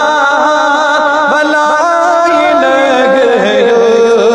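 A man singing a naat, drawing out long held notes with wavering, sliding ornaments.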